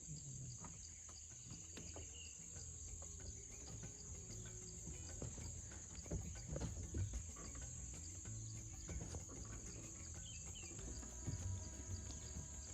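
Insects droning in forest: a steady high-pitched buzz that holds unchanged, over a low rumble.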